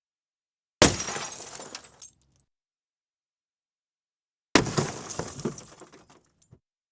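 Two separate glass-smashing sound effects: each is a sharp crash followed by shards tinkling and settling. The first comes about a second in and dies away within about a second, and the second comes just past the middle and lasts about two seconds, with a few scattered clinks of falling pieces near its end.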